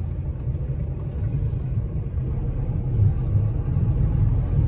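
Car-transporter truck driving slowly: a low, steady engine and road rumble that gets a little louder about three seconds in.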